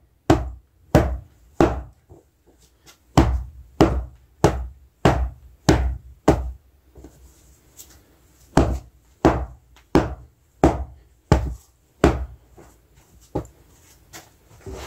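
Bedding being shaken out and beaten by hand to knock the dust from it: a run of sharp thwacks, one or two a second, in several bursts with short pauses between.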